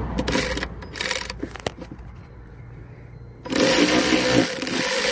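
A cordless electric ratchet fitted with a socket, its motor running in one continuous whir for about two seconds from a little over three seconds in. Before that come a few light clicks and knocks from the tool being handled.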